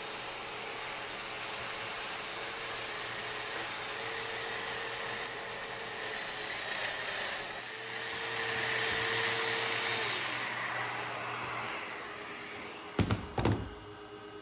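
Festool Domino joiner running steadily while cutting mortises into a maple plywood panel, swelling briefly about nine seconds in as it cuts. It winds down about twelve seconds in, and a couple of sharp knocks follow.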